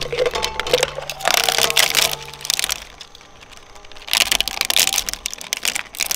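Twin-shaft shredder's steel blades crunching and cracking a hard plastic skeleton, with dense snapping for the first couple of seconds. The cracking eases off for about a second, then comes back loudly about four seconds in as the ribcage is torn apart.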